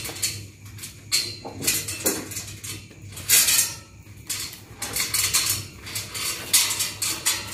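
Irregular metallic clinking and clattering, many small knocks in quick clusters, over a steady low hum.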